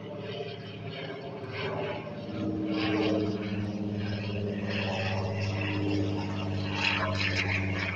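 Light single-engine propeller plane flying overhead, its engine a steady drone that grows louder about two and a half seconds in.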